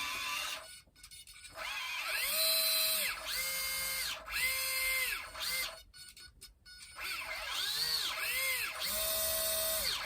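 The two small electric motors and propellers of a UMX Twin Otter spinning up and back down in repeated short throttle bursts. Each burst is a rising whine that holds and then falls away, and at times two whines at slightly different pitches overlap, as the motors run at different speeds for differential-thrust steering.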